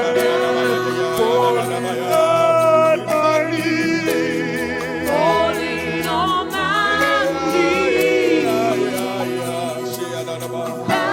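Live worship music: singers drawing out long, wavering sung notes over a steady, sustained accompaniment.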